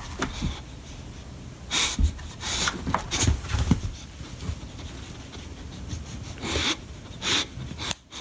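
English bulldog snorting and panting in a string of short, noisy huffs through his flat nose, several in the first half and two more near the end.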